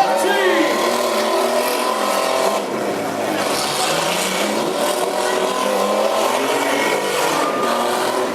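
Several small pickup trucks' engines running and revving at once, their pitches rising and falling against one another, over crowd noise.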